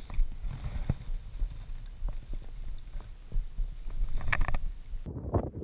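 Water sloshing and rumbling around a float tube, broken by scattered light knocks and a short cluster of clicks about four seconds in, as a small perch is handled in a landing net.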